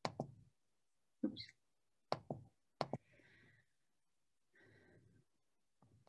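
Computer mouse clicks and desk handling noise: four sharp clicks and knocks in the first three seconds, then two faint, soft rustles.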